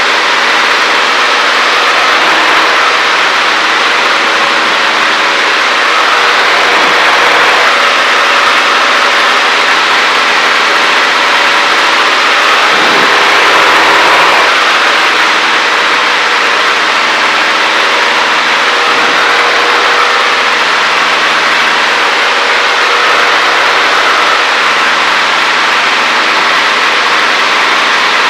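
Cessna 152's four-cylinder Lycoming engine and propeller running steadily in flight, heard loud from inside the cockpit.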